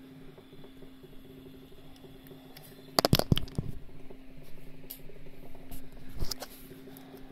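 Small battery motor of a light-up LED spinner toy whirring steadily as its arms spin. A cluster of sharp knocks and rattles comes about three seconds in, and another knock comes around six seconds.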